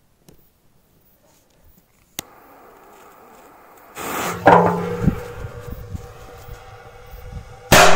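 A jet lighter clicks on and hisses as the fuse is lit. Near the end a Korsar 8 firecracker goes off inside an iron jerrycan with a sudden loud bang, a long ringing tail fading after it.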